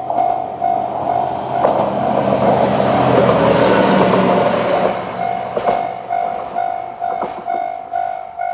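Electronic level-crossing bell of the JR Central type, ringing a steady repeating ding about twice a second. From about a second and a half in, a YR-880 diesel railcar passes over the crossing; its rumbling, loudest about four seconds in, nearly drowns the bell, with sharp wheel clicks over the rail joints. The bell rings on clearly after the train has gone by.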